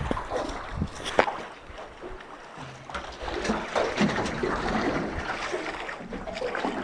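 Sea water lapping and splashing around a small boat sitting still on the water, with a sharp knock about a second in.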